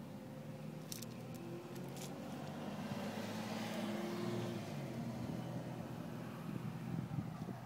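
A car passes by, its noise swelling to a peak midway and then fading, over a steady low hum. A few sharp handling clicks come between about one and two seconds in.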